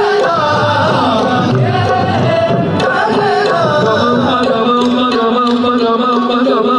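Live qawwali music: tabla strokes under harmonium and a gliding melodic line, with a steady low note held from about four seconds in.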